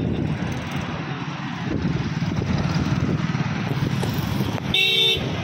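Wind buffeting the microphone over the rumble of passing road traffic on a bridge, with a short vehicle horn blast near the end.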